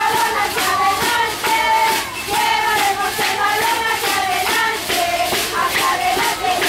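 Many voices singing together in long held notes.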